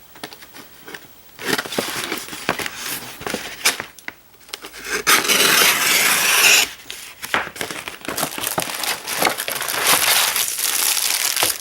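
Packaging being unwrapped by hand: crinkling and rustling with scattered small clicks and knocks, and two longer stretches of dense crinkling, one about five seconds in and one near the end.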